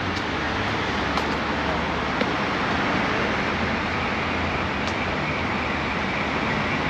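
Steady rush of road traffic passing along a busy city street, with a faint high whine coming in about halfway through.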